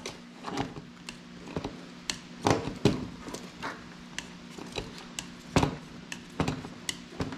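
Irregular clicks, taps and a few heavier thumps as hands press and work a deflated fat-bike tire around its rim.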